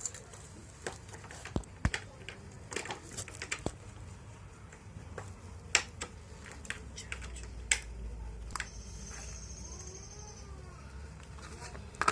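Scattered light clicks and taps of small metal parts being handled as a motorcycle carburetor is put back together, with a brief high fluttering trill about two-thirds of the way in.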